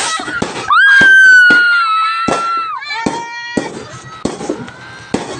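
Fireworks and firecrackers going off: repeated sharp bangs and crackling. About a second in comes a loud, high-pitched whistle-like tone held for about two seconds, then a shorter, lower one.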